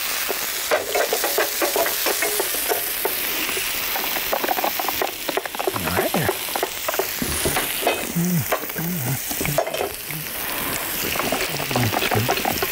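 Onions sizzling steadily in olive oil in a hot frying pan, with a knife tapping repeatedly on a cutting board as mushrooms are sliced.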